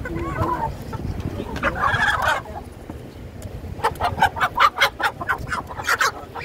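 Chickens clucking and squawking, with a brief call early on and another about two seconds in. About four seconds in comes a fast run of short, sharp squawks as one bird is lifted by its legs and flaps its wings.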